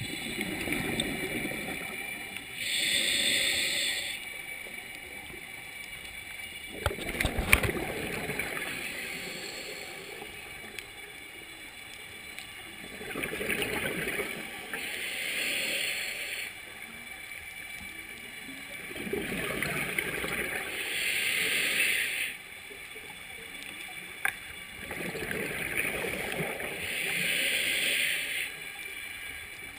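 Scuba diver breathing through a regulator underwater: a hiss on each inhale alternating with a gurgling rush of exhaled bubbles, several breaths a few seconds apart. A sharp click about seven seconds in, and another later.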